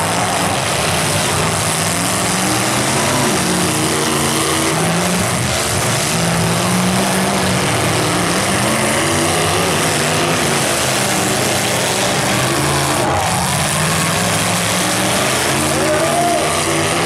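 Engines of several demolition derby cars running together, revving up and down one over another.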